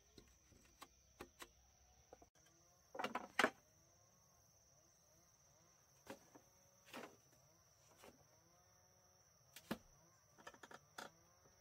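Bamboo poles knocking and clattering as they are handled and fitted into a frame: a loud cluster of knocks about three seconds in, then scattered single knocks. A steady high insect drone runs underneath.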